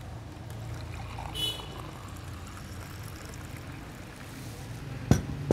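Blended coffee being poured from a blender jug into a glass mug, a steady pour. There is a brief ringing about a second and a half in and a sharp knock near the end.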